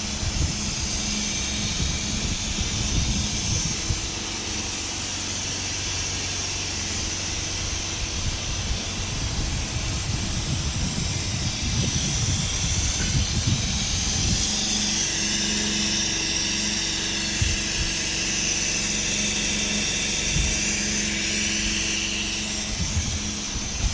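Dräger Evita 4 ICU ventilator running, a steady mechanical hum with a hiss of gas flow. A rougher low rumble eases about halfway through, leaving the steadier hum.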